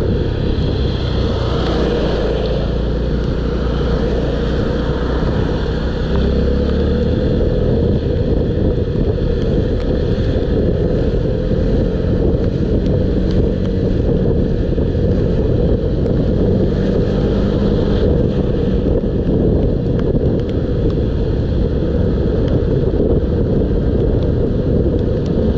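Steady wind rush on the microphone of a riding Honda 125cc motorcycle, with its engine running underneath and the hiss of a rain-soaked road.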